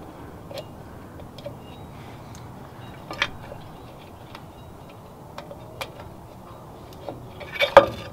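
Scattered light metallic clicks and ticks from a drum brake shoe and its spring hardware being handled against the backing plate, with a louder cluster of clinks near the end as the shoe is worked off the plate.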